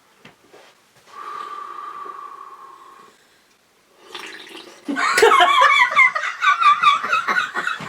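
A wet, gurgling snore-like breath out through a mouthful of carbonated grapefruit soda, lasting about two seconds from a second in. About five seconds in, loud laughter breaks out.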